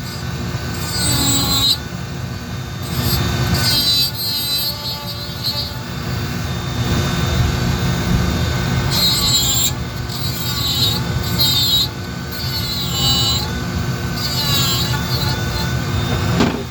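Dremel rotary tool running at high speed with a carving bit, texturing wood. Its high whine wavers in pitch and comes and goes in repeated passes as the bit is pressed into the wood.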